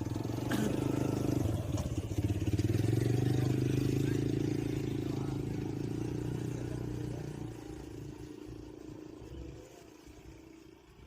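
An engine running steadily, loudest a few seconds in, then fading away over the last few seconds as it moves off.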